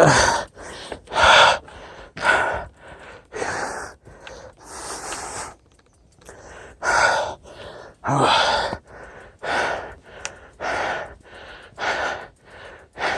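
A person breathing hard, in heavy breaths about one a second, with a longer breath near the five-second mark: out of breath from walking a mountain bike uphill in the heat.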